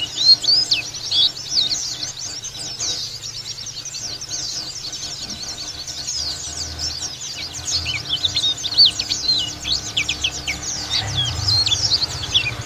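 White-eye (pleci dakun, a yellow-breasted Zosterops) singing its 'ngalas' song: a fast, unbroken run of high twittering chirps that thins out for a few seconds about a third of the way in, then picks up again just as densely.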